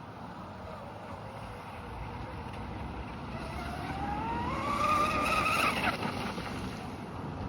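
Blackjack V2 RC boat running on the water, powered by a 6S brushless electric motor: a steady hiss of hull and spray, then the motor's whine rises in pitch as it speeds up from about three and a half seconds in, and drops away abruptly just before six seconds.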